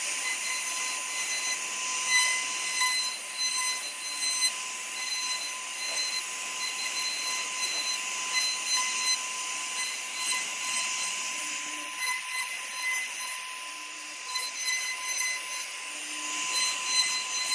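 UTECH S2 CNC router's spindle running with a steady high-pitched whine while the bit carves wood, over a continuous hissing cutting noise.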